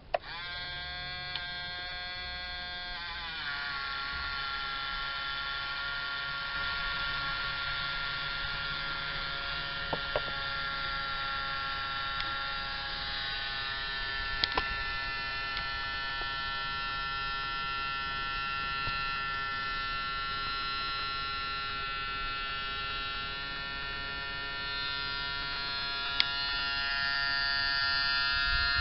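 Small electric water pump whining steadily as it pumps water through a hose from a 1/14-scale RC tanker. It starts abruptly, drops to a lower pitch about three seconds in, then runs on steadily with a few faint clicks.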